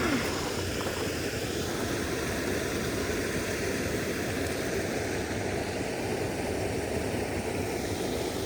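Steady rushing of creek water running over small rapids.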